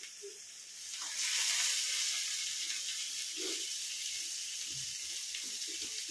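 Raw meat pieces sizzling in hot oil in an aluminium kadai over a wood fire. The steady sizzle swells about a second in, then holds.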